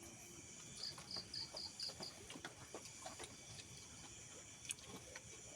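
A cricket chirping: a quick run of six short, high chirps about a second in, then faint scattered clicks.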